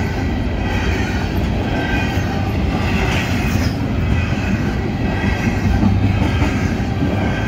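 Double-stack intermodal well cars of a freight train rolling past at speed: a steady, loud rumble and clatter of steel wheels on the rails, with a faint high squeal from the wheels over it.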